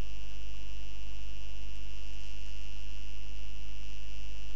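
Steady electrical mains hum picked up by the recording setup, a low drone with a thin steady high whine over faint hiss.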